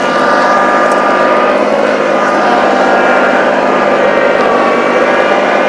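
Small tractor's engine running steadily, used to push over a leaning tree.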